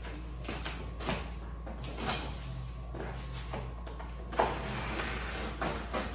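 Handling of a plastic-wrapped elevated dog bed on a table: a series of irregular knocks and clatters, the sharpest about four seconds in, followed by plastic wrapping rustling for a second or so.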